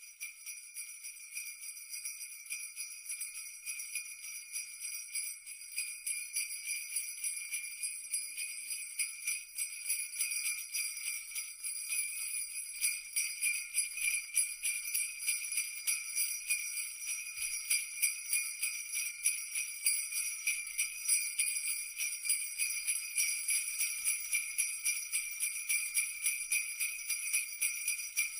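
Sleigh bells shaken in a steady, rapid rhythm of many jingles, growing louder over the first dozen seconds and then holding.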